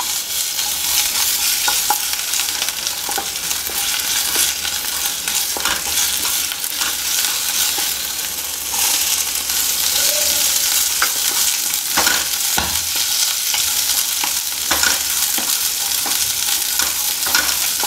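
Cumin, peas and ginger-garlic paste sizzling in hot oil in a non-stick frying pan, with a wooden spoon scraping and clicking against the pan as it is stirred. Sliced onions go into the pan partway through.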